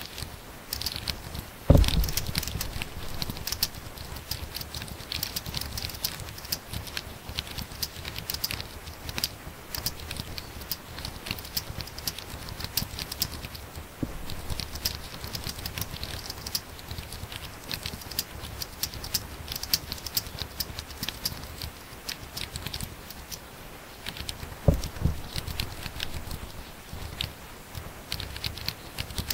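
Fast typing on a laptop keyboard: a dense, continuous patter of key clicks, with two louder thumps, one near the start and one near the end.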